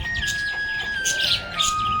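Budgerigar chirping in short, quick bursts over background music, a simple melody of long held notes stepping down in pitch.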